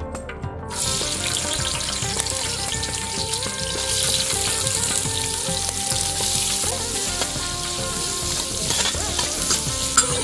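Coconut slices frying in hot coconut oil in a heavy pan: a dense sizzle that starts about a second in and swells as the pieces are dropped in. A spoon stirs them, with a sharp clink against the pan near the end.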